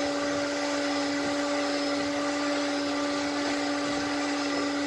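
1960 Sears Lady Kenmore Kenkart vacuum cleaner running steadily on high with its suction relief valve open: a constant motor hum over the rush of air as it cleans crumbs from a couch.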